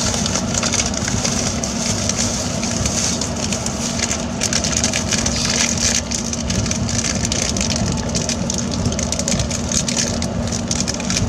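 Running noise of an E353 series electric train at speed, heard inside the carriage: a steady rumble and hiss of wheels on rail with a constant low hum.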